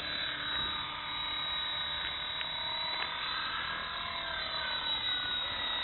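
Small radio-controlled helicopter hovering and flying low, a steady high whine from its motor and rotors that drifts up and down in pitch as the throttle changes.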